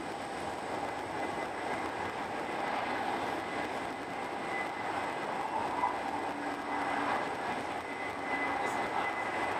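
Steady running noise of a Eurostar Italia high-speed train at speed, heard from inside the passenger car: an even rushing hiss with a faint high whine.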